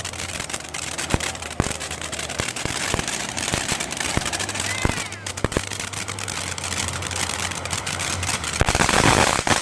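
Backyard consumer fireworks going off: rapid irregular pops and crackles, swelling suddenly into a louder, denser crackle with short whistles near the end.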